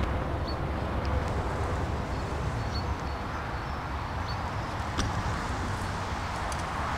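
Steady wind rumble buffeting the microphone, with a few faint, short, high chirps now and then and a single click about five seconds in.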